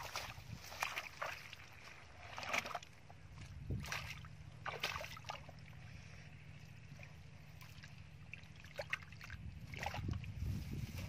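Hands and feet working through shallow muddy water: scattered squelches and small splashes, several in the first half and a cluster near the end, over a steady low rumble.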